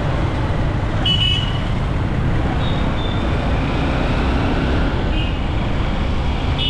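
Street traffic: a steady low rumble of vehicles, with a few short high-pitched horn toots.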